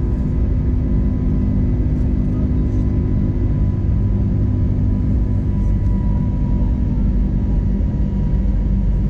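Steady cabin drone of an Airbus A321neo in flight, heard from a window seat: a low rumble of engine and airflow from its Pratt & Whitney PW1100G geared turbofans, with a faint steady whine on top. A lower hum in the mix fades out about three seconds in.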